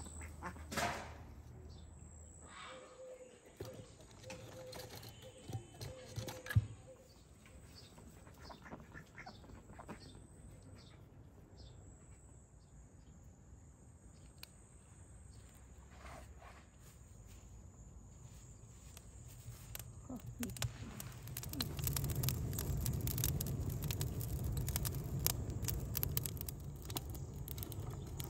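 Domestic ducks quacking now and then. Later, a wood fire catches and burns strongly in a clay oven, crackling and roaring; this becomes the loudest sound in the last third.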